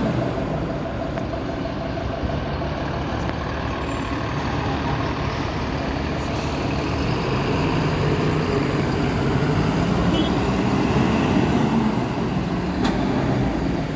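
Heavy diesel road vehicles, trucks or buses, running with their engines' drone steady and rising a little near the end, amid the general traffic noise of vehicles moving through a ferry terminal.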